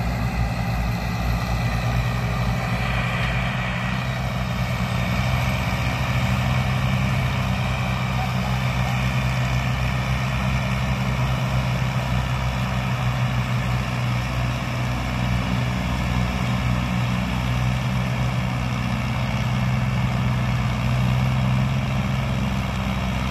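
Massey Ferguson 360 tractor's diesel engine running steadily under load, hauling a trolley heavily loaded with sugarcane.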